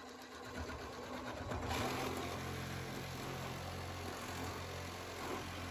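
Milwaukee M18 cordless power tool running as it cuts through PVC tub drain pipe. The motor starts at once, and the cutting noise grows louder about two seconds in, then holds steady.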